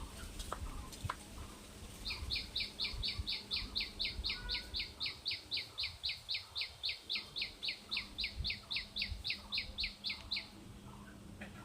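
A small animal calling a long, even run of quick, high chirps, about four or five a second, starting about two seconds in and stopping about two thousandths of a second before ten and a half seconds. Each chirp slides downward.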